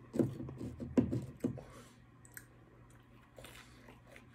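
A man chewing pizza close to the microphone: a burst of clicky mouth and chewing sounds in the first second and a half, then a few faint clicks.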